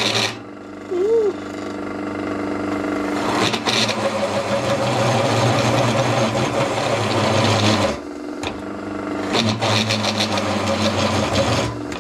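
SIP F2820 belt-driven floor pillar drill running an annular cutter through steel box section, the cutter chattering in the cut from about three and a half seconds in, letting up briefly near eight seconds and cutting again. Short hisses of aerosol cutting fluid sprayed onto the cutter. The chatter is put down to the belt drive, with new belts that are stretching.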